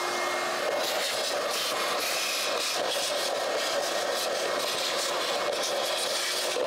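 Vacuum cleaner running steadily at full speed, sucking out the bottom of a car's air filter box, with small crackles and rattles of debris going up the nozzle.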